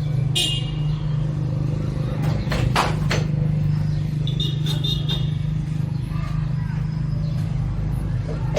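Motorcycle engine running at a steady idle, with a few sharp knocks a little over two seconds in.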